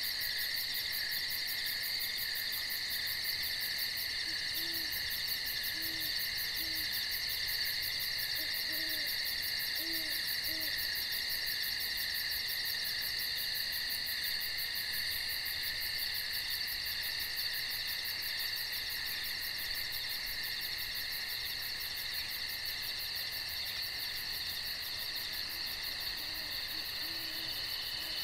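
Steady night insect chorus: a shrill trill of crickets and other insects with a fast pulsing ticking above it. Over it an owl gives a series of short, low hoots, about five to eleven seconds in and again near the end.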